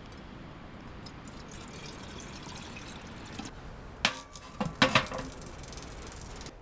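Water poured from a plastic canteen into a small steel kettle, a steady trickle for about three seconds. About four and five seconds in come two metal clanks as the kettle is set down on the steel top of a woodstove.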